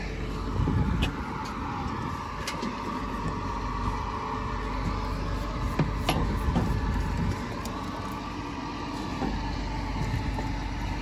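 A motor vehicle's engine running with a steady low rumble, a few light clicks over it.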